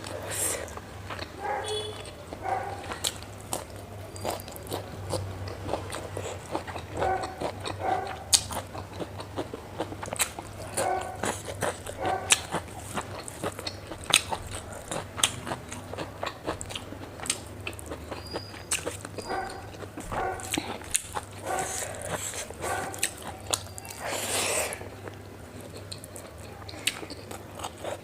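Close-miked eating of fatty pork and rice: wet chewing, biting and lip-smacking clicks, with brief whine-like pitched sounds scattered between bites.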